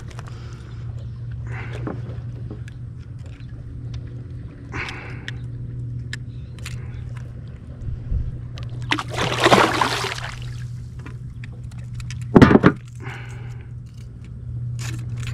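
Handling a caught striped bass and fishing tackle in a kayak: scattered small clicks and rattles. There is a loud noisy rush of about a second and a half near the middle and a short, sharper burst a few seconds later, all over a steady low hum.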